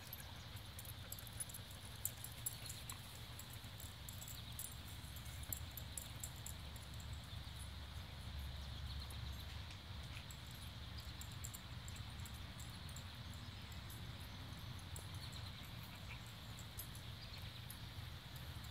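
Dogs moving about and panting, heard faintly over a low steady rumble, with scattered light clicks and ticks throughout.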